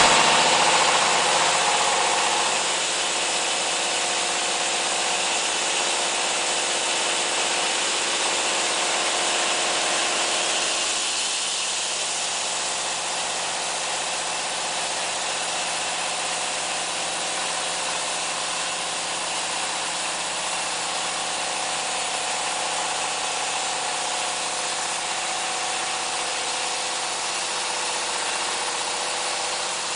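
Diesel engine driving a horizontal band sawmill, running steadily with the band saw going; the sound eases slightly about eleven seconds in.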